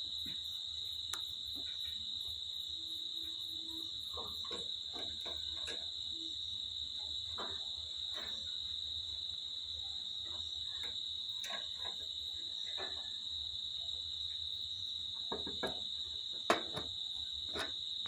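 A cricket trilling steadily at one high pitch, with scattered soft clicks and a few short chip notes, the sharpest near the end.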